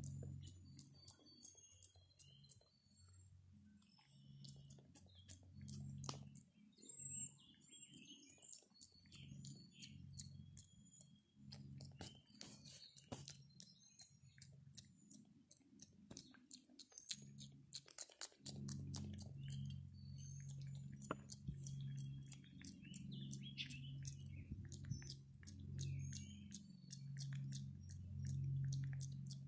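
Java macaque grooming at close range, its mouth making many quick, irregular wet clicks and smacks. A low hum swells and fades beneath, and it is stronger from about two thirds of the way in.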